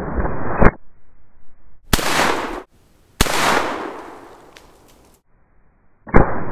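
Four rifle shots from a Taylor's 1892 Alaskan lever-action rifle in .44 Magnum, spaced unevenly over several seconds; the second and third ring out with a long fading echo. A steady low rumble sits under the first and last shots.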